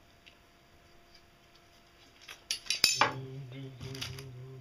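A steel bolt and small metal parts clinking as they are handled and fitted into a white plastic plate, with a few sharp clinks about two and a half seconds in. Then a steady low hum sets in that wavers slightly, with more light clinks.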